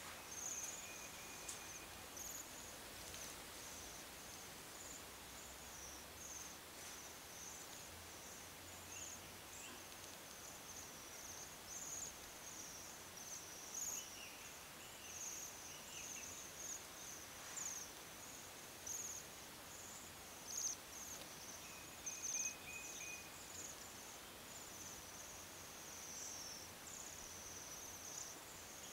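Flock of Bohemian waxwings calling: many high, thin ringing trills overlapping almost without a break.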